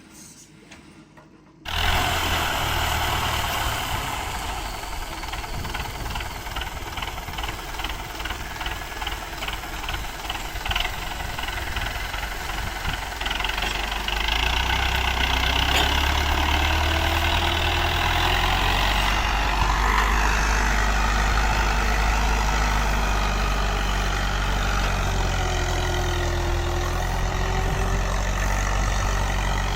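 An engine-like running sound cuts in suddenly about two seconds in: a steady low drone that grows louder about halfway through, with a faint whine that rises and falls in pitch now and then.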